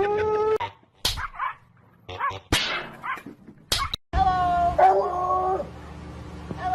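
A dog whining in long, drawn-out, steady-pitched cries, broken in the middle by a stretch of short, sharp noises.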